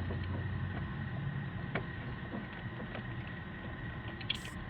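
Steady low background hum with a faint high whine, a single light click almost two seconds in and a brief hiss near the end.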